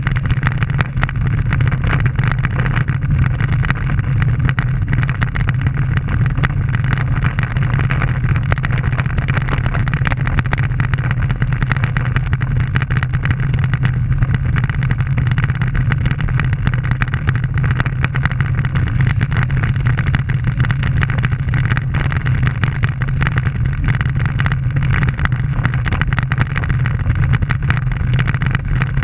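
A steady low drone with constant fine rattling and wind rush: the running noise of the camera's carrier travelling at speed along a rough embankment road.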